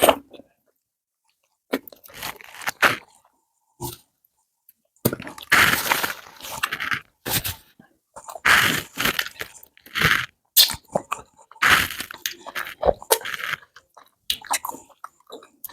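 Close-miked chewing and crunching of food in the mouth, coming in irregular bursts with short pauses between them.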